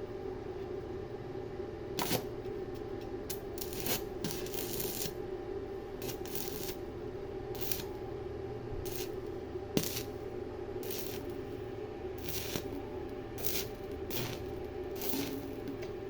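Arc welding: a run of short crackling bursts of the arc, about a dozen at irregular intervals, over a steady hum.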